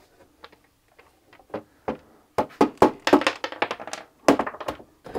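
A run of sharp clicks, taps and knocks as the battery's removed lid is turned over with its loose screws, sparse at first and busiest from about two and a half seconds in.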